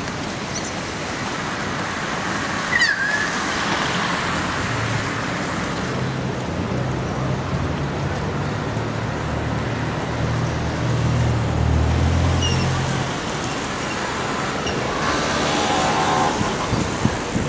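Steady road traffic noise, with a heavy engine's low hum growing louder from about five seconds in and fading after about thirteen seconds. A brief high chirp sounds near three seconds in.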